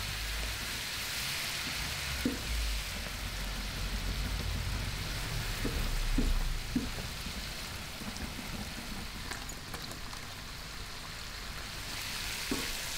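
Sliced onions and garlic cooking in cognac over high heat in a stainless steel pan, a steady hiss of sizzling and bubbling. A spoon stirring the pan knocks against it a few times.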